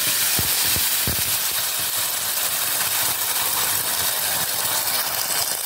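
Ground onion paste sizzling hard in hot oil in a stainless-steel kadai, just after it has been tipped in, with a few soft knocks in the first second or so. The steady sizzle cuts off suddenly at the end.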